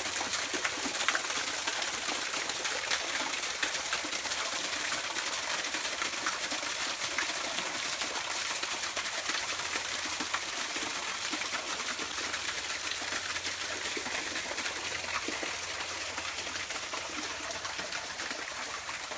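Small forest waterfall running full in the rainy season, water pouring and splashing over large rocks in a steady rushing wash.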